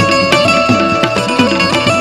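Instrumental interlude of Indian devotional folk music: a melody line and plucked strings over hand drums, whose strokes bend down in pitch several times a second.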